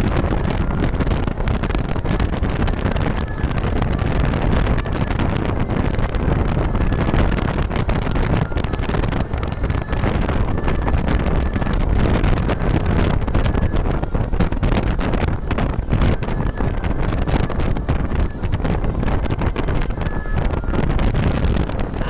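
Heavy wind buffeting on the microphone over the steady rumble of road traffic, including a tour bus moving slowly toward the roadside. No horn is sounding.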